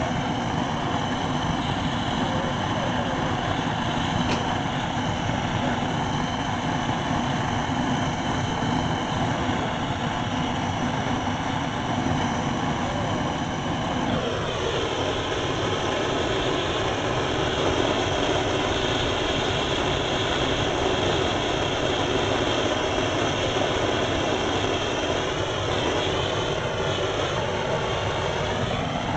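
Hand-held gas torch burning steadily, heating a copper pipe coupling for soft soldering. Its tone changes about halfway through as the flame is moved along the pipe.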